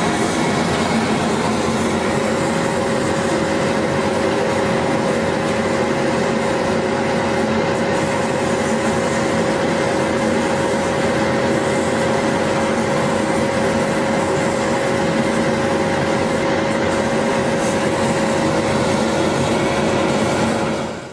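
RUKA 1610-CCD CO2 laser fabric cutter running while it cuts, a steady machine drone with a constant hum and no breaks. It cuts off sharply at the end.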